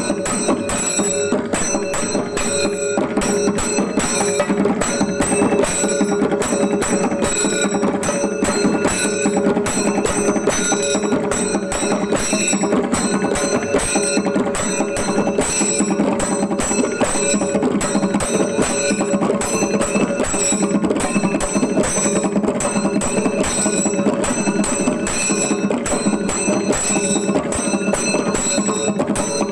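Chenda drums played together in a chembada melam: a fast, unbroken stream of stick strokes, with metal cymbals ringing steadily over them.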